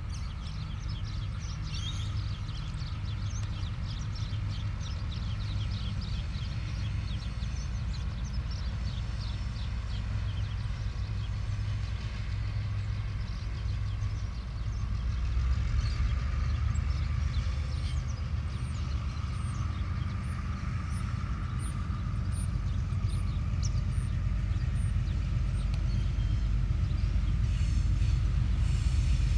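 Diesel freight train hauled by three locomotives approaching, a steady low engine rumble that grows gradually louder as it comes closer.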